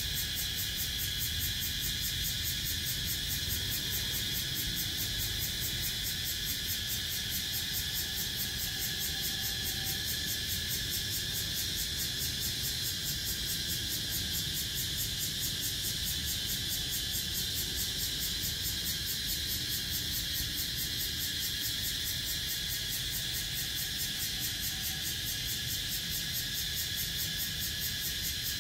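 Cicadas singing in chorus: a steady, high-pitched buzzing drone with a rapid, even pulse that does not let up.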